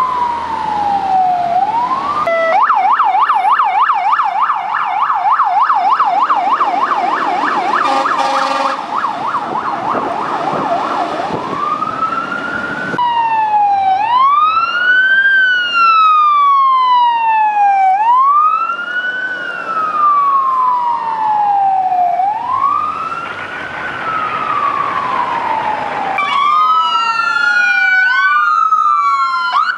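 Emergency vehicle electronic sirens, in a run of short clips. A falling wail cuts to a fast yelp of about five sweeps a second. After that come slow wails that rise quickly and fall over about four seconds each. Near the end, two sirens wail out of step.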